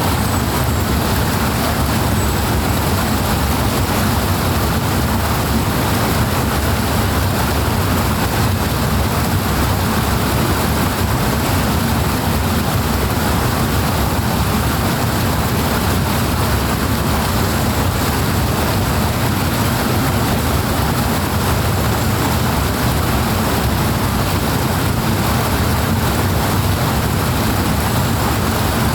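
Loud, steady rush of flowing water: an even hiss over a deep rumble.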